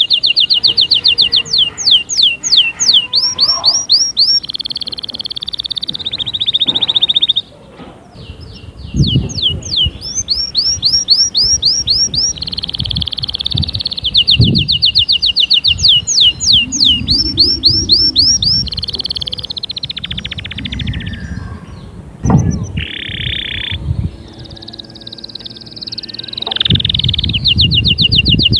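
Domestic canary singing, fast runs of rapid repeated sharp notes and trills that change pattern every second or two, with brief pauses between phrases. A few dull low thumps sound underneath.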